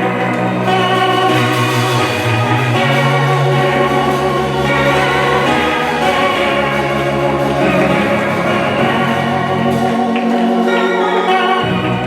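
Church organ-style keyboard music playing sustained chords, with the bass note changing every couple of seconds and dropping out briefly near the end.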